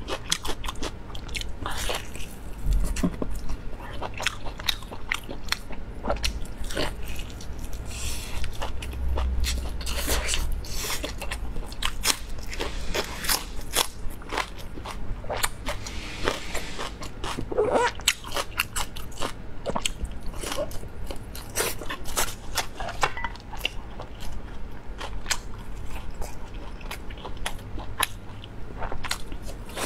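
Close-miked biting and chewing: a person eating roasted meat on the bone with raw red onion. There are irregular crisp crunches and clicks throughout.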